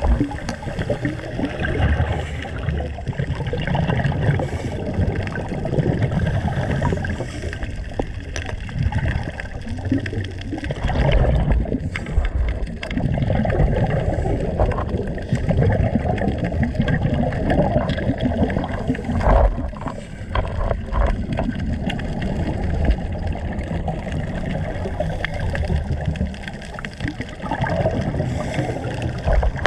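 Muffled underwater rumble and gurgling of moving water, heard through a submerged camera, with a few sharp knocks in the middle.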